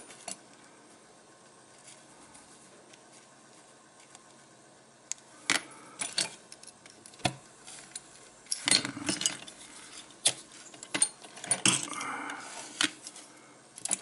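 Small metal clicks and clinks of steel tweezers working on the brass insert of a vintage Firebird butane lighter. Nearly quiet for the first few seconds, then a scatter of sharp ticks and short rattles from about five seconds in.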